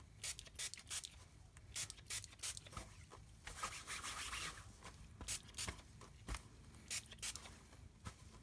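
Faint rustling of gloved hands scrunching and rubbing dye-soaked sari silk on paper, with short crinkles throughout and a longer rub about three and a half seconds in.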